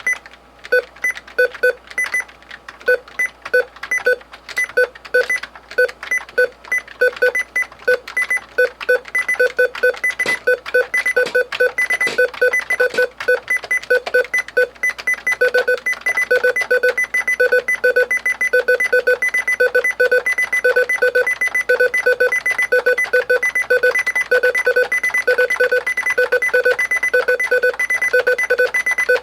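A keyboard giving out repeated short electronic beeps, at first spaced unevenly, then from about halfway coming in a quicker, steady run of about three a second.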